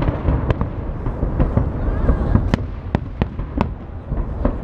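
Fireworks salute bursting: a rapid, irregular string of sharp bangs and crackles, sometimes several a second, over a continuous low rumble.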